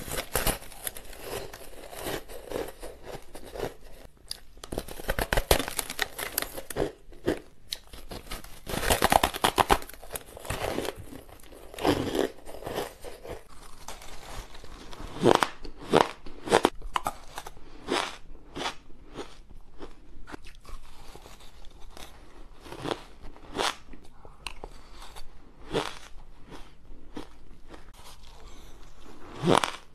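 Crunchy biting and chewing of frozen shaved ice. In the first half the crunching is dense and continuous. About halfway through it thins to separate sharp crunches, about one or two a second.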